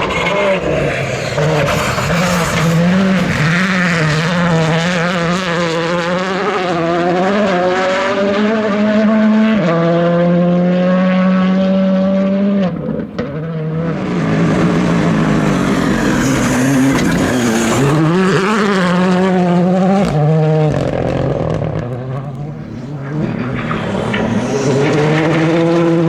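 Rally car engine running hard at high revs. The pitch rises and falls with gear changes and throttle, holding steady for a few seconds before a sharp momentary lift about halfway through and a shorter dip near the end.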